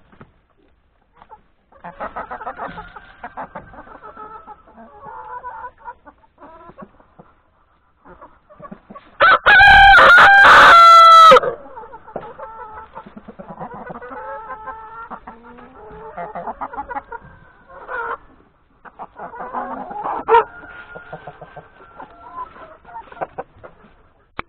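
Hens clucking and calling, with a rooster crowing once, very loud and close, about nine seconds in; the crow lasts about two seconds.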